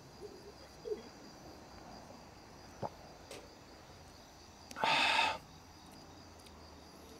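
Crickets trilling steadily in the background, with a faint click just before three seconds in and a short, loud rush of noise lasting about half a second around five seconds in.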